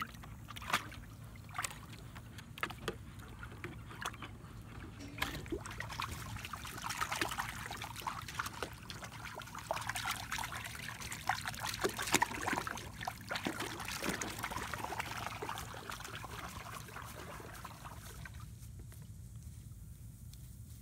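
Shallow water splashing and sloshing in a plastic kiddie pool as German Shepherd puppies wade and a hand swishes through it. A few sharp knocks come in the first seconds, the splashing is busiest in the middle, and it dies away near the end.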